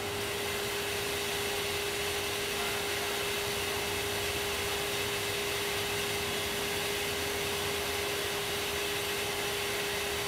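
A machine running steadily: an even rushing noise with a constant mid-pitched hum.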